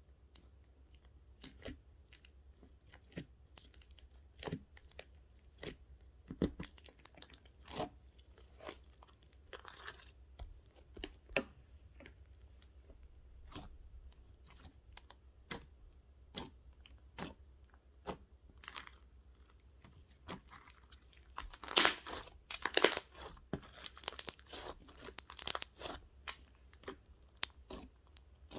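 Small objects being handled up close: scattered light taps and clicks, with a louder stretch of crinkling and tearing about 22 seconds in.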